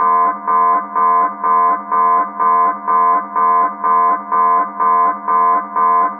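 Military submarine alarm sounding in rapid, identical pitched pulses, about two a second, over a steady low drone.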